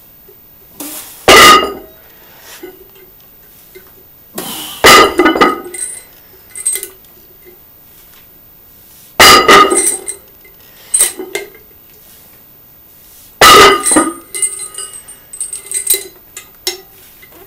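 Gym weights clanging: four loud metal-on-metal clangs about four seconds apart, each ringing briefly and followed by a few lighter clinks, as iron weight plates and barbell are handled.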